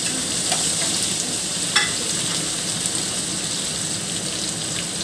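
Ginger, garlic and onion paste and spices sizzling steadily in hot mustard oil in a wok as a spatula stirs them, with one brief clack about two seconds in.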